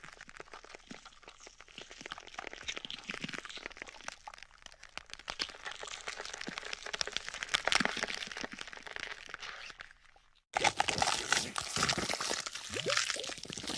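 Wet spitting and sputtering sound effect: a dense run of small crackling pops that builds in loudness, breaks off briefly about ten seconds in, then returns louder and fuller.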